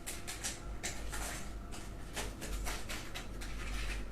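Irregular rustling and tapping noises, several a second, over a low hum.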